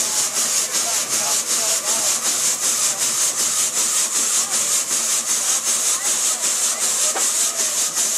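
Showman's steam road locomotive running to drive its front-mounted dynamo for lighting, its steam beat a steady, rapid, even hissing rhythm.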